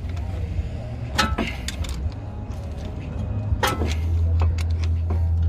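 Channel-lock pliers clinking against a disc-brake caliper as they are set to squeeze the piston back: two sharp metal clinks, about a second in and near the middle, with fainter ticks between. A steady low hum runs underneath.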